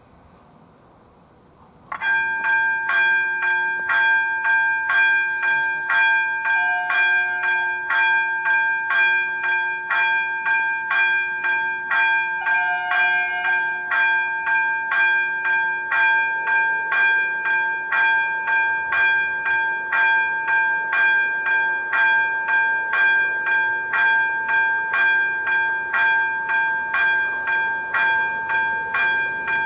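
Second-generation electronic warning bell of an AŽD 97 level-crossing signal ringing in evenly repeated strokes, about two a second. It starts suddenly about two seconds in and warns that a train is approaching.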